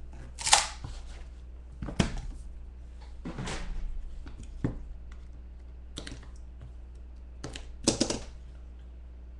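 Hands handling a trading card box and its wrapped contents: a string of knocks, clicks and scrapes of cardboard and plastic on the table, with a longer rustle a few seconds in. The loudest knocks come about half a second in and near the end.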